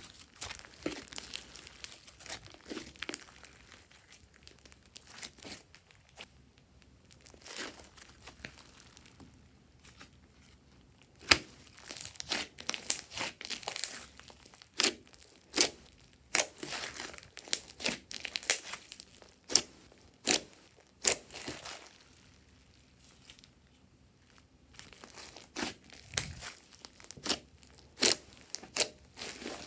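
Hands kneading, pressing and stretching a large mass of glossy slime, giving irregular sticky pops and crackles. The pops come in clusters with two quieter spells, and a single sharp pop about a third of the way through is the loudest.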